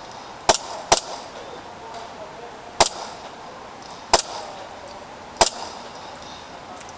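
Gas blowback airsoft pistol firing five single shots, sharp cracks spaced irregularly, the first two close together.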